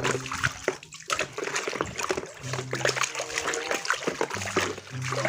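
Water splashing and sloshing in small, irregular bursts as a muddy toy is washed clean by hand. A low steady hum comes and goes in the second half.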